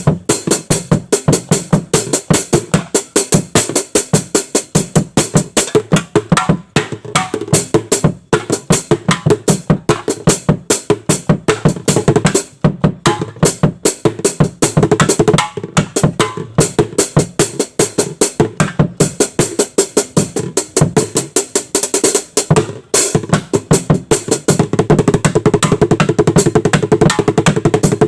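Improvised drum kit of tin cans and old buckets played in a fast, steady groove, with a few brief breaks for fills.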